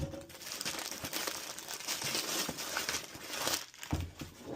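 Packaging crinkling and rustling as a package is opened by hand, dying down near the end with a few soft bumps.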